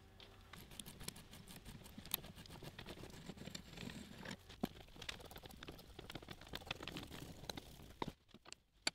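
Hand tap cutting a thread into a metal block held in a vise: faint, irregular small clicks and scraping as the tap turns and the chips break. The sound stops about eight seconds in.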